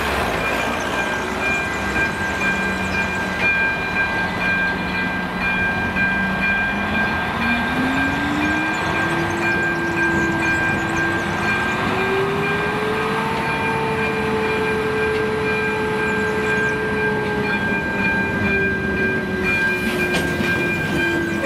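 Freight wagons rolling slowly over a level crossing, their wheels clattering on the rails, while the crossing's electronic warning signal sounds a steady high tone. A lower drone rises in pitch about seven seconds in, then slowly falls.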